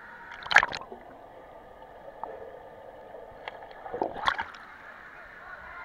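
Swimming-pool water splashing and sloshing close to the microphone, with a steady bubbling hiss. Two loud splashes stand out, about half a second in and a little after four seconds in.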